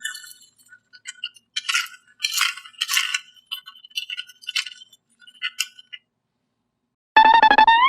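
Light, irregular clinking and rattling of small hard objects, in loose clusters for about six seconds. Near the end a loud pitched cartoon sound effect starts and bends upward in pitch.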